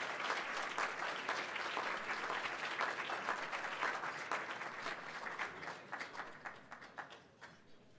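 Audience applauding: dense clapping at first, thinning to scattered single claps and dying away near the end.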